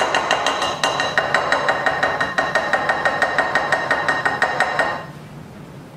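Spatula scraping and knocking around the inside of a glass mixing bowl of creamed butter and sugar, with quick regular strokes about five a second. The glass rings with each stroke, and the strokes stop about five seconds in.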